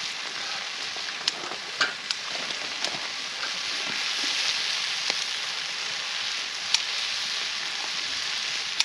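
Pork sizzling on a cast-iron cauldron lid (sotttukkeong) over a wood fire: a steady frying hiss with a few sharp clicks and pops scattered through it.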